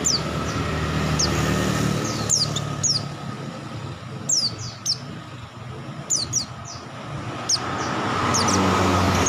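White-eye (pleci) giving short, high down-slurred chirps, often two in quick succession, repeated every second or so. Under it runs the hum of a passing engine, louder at the start and again near the end.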